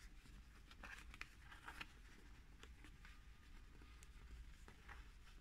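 Near silence with faint, scattered rustles and light taps of denim fabric being pressed and smoothed onto a cardboard box.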